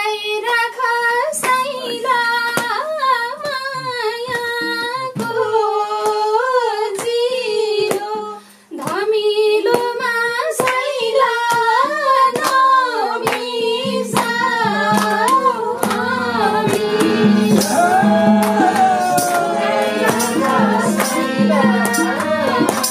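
Nepali folk song: a woman singing a wavering, ornamented melody over hand-drum percussion, with a brief break about eight and a half seconds in.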